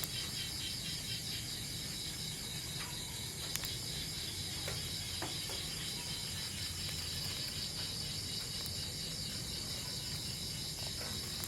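Steady chorus of insects chirring outdoors, a fast-pulsing high trill that never lets up, over a low hum, with a few faint ticks about four to five seconds in.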